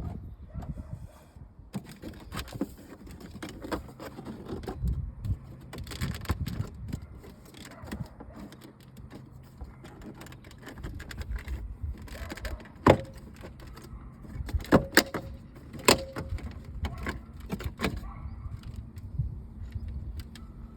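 Scattered sharp clicks, taps and light rattles of hands and tools working on car trim parts and screws, over a steady low hum.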